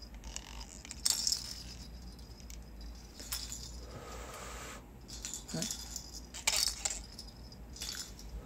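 Soap bubbles being blown by hand: several short hissy puffs of breath through a bubble wand, with light clinking rattles between them.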